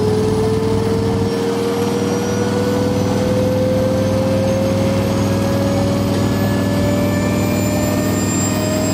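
IHI Dynajet small gas-turbine generator running, its turbine whine rising slowly and steadily in pitch over a steady low hum.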